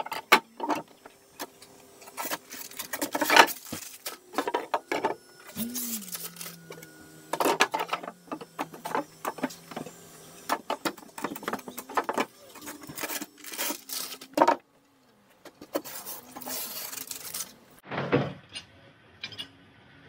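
Scattered knocks, clatter and scraping of tools and materials being handled inside a fibreglass boat hull, with a faint low hum for a few seconds in the middle.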